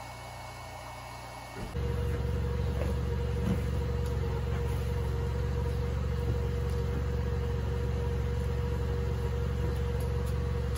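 Electric air pump switching on about two seconds in and running steadily with a constant whine, inflating a car air mattress.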